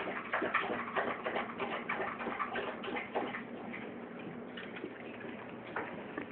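Golden retriever making quick, irregular clicking sounds up close, many in the first few seconds and fewer after.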